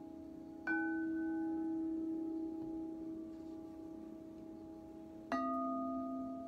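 Crystal singing bowls struck twice with a mallet, about four and a half seconds apart. Each strike rings on in several steady, overlapping tones, and the second adds a lower tone beneath the one still sounding.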